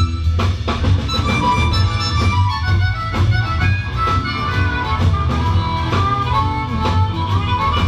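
Live blues band playing: a harmonica, cupped against a vocal mic and amplified, plays a solo of held, bending notes over electric guitar, bass and drums.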